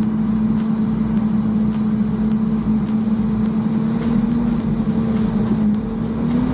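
An engine running steadily at constant speed, an even hum that wavers slightly in pitch near the end.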